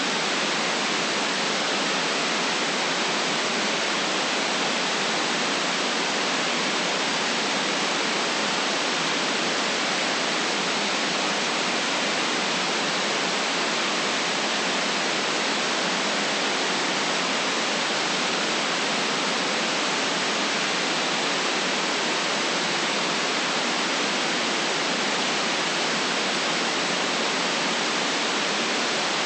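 Steady white noise: an even, unchanging hiss with no deep rumble and no very high top, holding the same level throughout.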